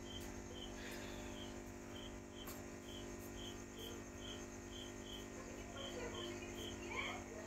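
Steady low hum of an aquarium air pump and sponge filter, with a short high chirp repeating about twice a second over it, pausing for a couple of seconds near the start.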